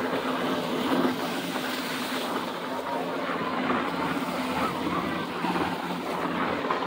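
Army helicopter flying low over the sea, its engine and rotors a steady distant hum, with small waves lapping and wind on the microphone.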